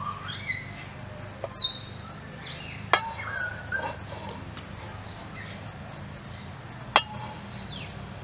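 Birds chirping with short, scattered calls throughout, while a wooden stirring stick knocks against a metal pan a few times, the sharpest knock about seven seconds in.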